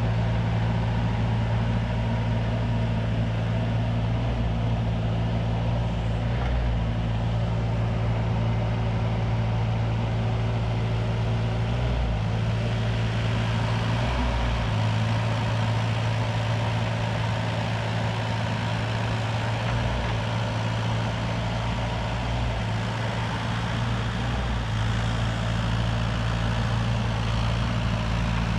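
CAT 302.7D mini excavator's diesel engine running steadily, its tone shifting slightly a few times.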